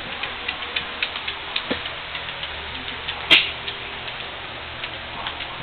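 A dog's nails clicking on a tile floor as it walks, light ticks about three or four a second, with one louder click a little past halfway.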